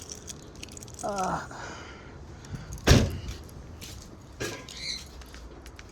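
Keys jangling and light handling clicks, with one loud thump about three seconds in and a brief voice-like sound about a second in.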